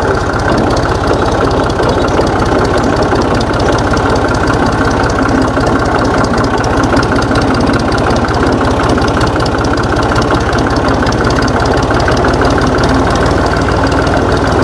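Fiat tractor's diesel engine running steadily under load as the tractor drives along in gear, heard close up with an even, rapid beat.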